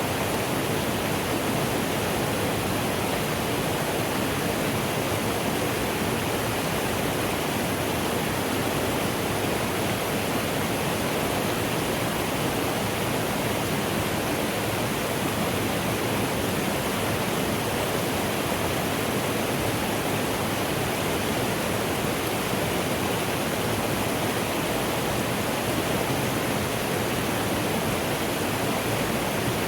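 Mountain stream running, a steady, unbroken rush of water.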